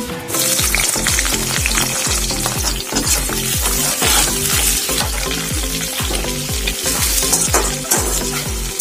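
Sliced onions sizzling in hot oil in a kadai, the sizzle flaring up as they are dropped in just after the start, then stirred and scraped around the pan with a spatula.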